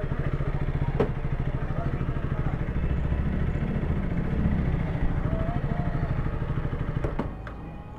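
KTM RC motorcycle's single-cylinder engine idling with an even, rapid firing beat, then cutting off about seven seconds in.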